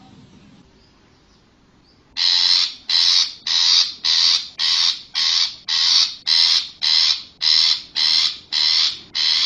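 Long-tailed shrike giving a harsh call over and over, about two calls a second, starting about two seconds in.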